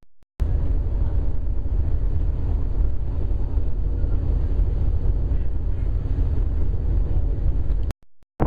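Fishing boat's engine running steadily, a low drone. The sound cuts out briefly at the start and again shortly before the end.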